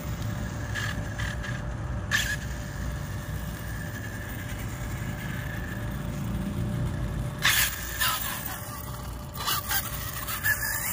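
Radio-controlled Arrma Infraction truck driven on asphalt: a steady electric-motor whine with tyre noise, and a few short sharp scrapes as it reverses and tries to spin round.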